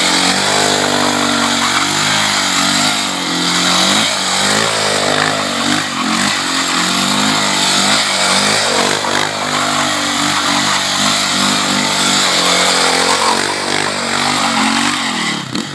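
Honda CRF450 dirt bike's single-cylinder four-stroke engine revved hard, its pitch rising and falling over and over as the rear tyre spins on asphalt in tight circles. The revs drop off right at the end.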